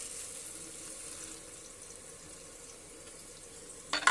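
Onions frying in hot oil, giving a steady sizzling hiss. Whole spice seeds pour onto a cloth at the start, and a short, louder sound comes near the end.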